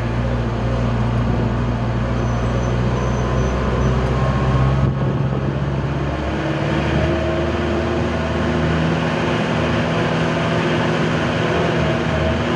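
Heavily loaded old Mitsubishi L300 pickup's engine running while driving, heard from inside the cab. About five seconds in the deep rumble drops away and the engine note changes, then it climbs slowly again.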